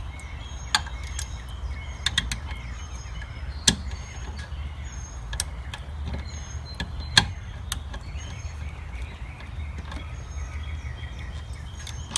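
Scattered light clicks and knocks of hand tools and parts being handled at a car's steering column, over a steady low hum. Small birds chirp over and over in the background.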